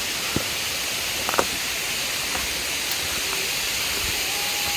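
Steady rushing of a mountain stream's water, a hiss without rhythm, with a couple of short sharp clicks in the first second and a half.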